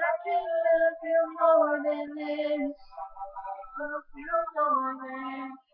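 A girl singing unaccompanied, a melody of long held notes with no clear words.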